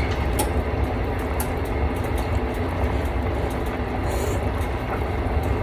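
A steady low rumbling noise, with a few faint light clicks in the first couple of seconds.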